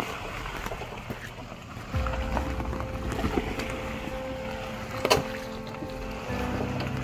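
Low rumble of a Jeep Wrangler crawling along a muddy trail. About two seconds in, background music with long held notes comes in and shifts to lower notes near the end. A single sharp knock a little after five seconds is the loudest sound.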